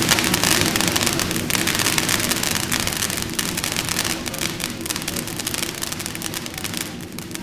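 Hot Rocket "Eat My Dust" ground firework spraying flame and sparks: a steady hiss thick with rapid crackling pops, easing off gradually toward the end.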